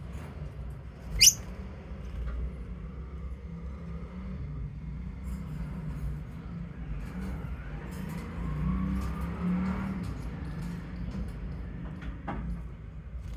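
Pet lovebird giving a single sharp, high chirp that drops in pitch about a second in, and a fainter short chirp near the end, over a steady low hum.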